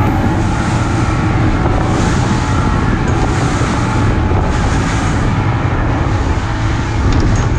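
A fishing boat running fast: steady engine noise mixed with rushing water from the hull and wake, and wind buffeting the microphone.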